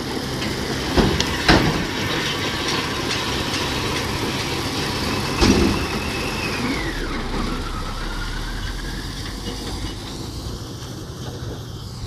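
Zetor tractor engine running under load as it pulls a Welger RP445 round baler through the straw, with the baler's mechanism working and a few sharp knocks, the loudest about five and a half seconds in. The sound gradually fades over the second half.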